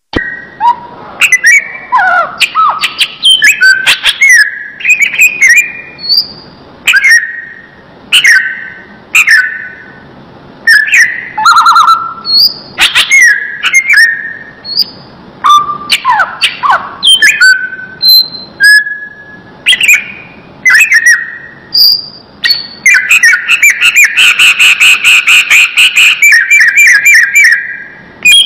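Cucak ijo (green leafbird) singing loudly and close: a long run of clear whistled notes and slurred phrases, breaking near the end into a fast rapid trill for several seconds.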